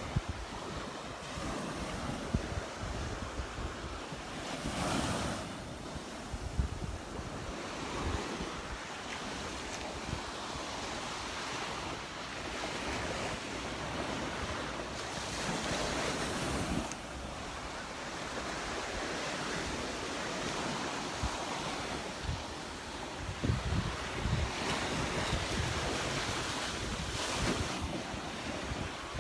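Gulf of Mexico surf washing onto a sand beach, swelling louder about five seconds in and again around sixteen seconds, with wind buffeting the microphone in low rumbling gusts near the end.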